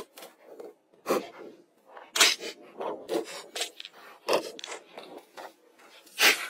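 Stones knocking and scraping as they are set down and slid into place: an irregular run of sharp clicks and knocks with short scrapes between them.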